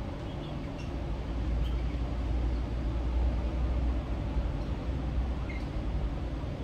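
Street traffic: the low rumble of a heavy vehicle passing, swelling for a few seconds and then easing, over a steady hum of traffic with a few faint high squeaks.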